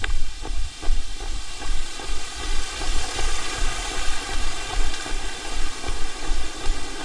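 Running footfalls on a trail, as low rhythmic thumps two to three times a second, under a steady rushing noise that swells and fades about the middle.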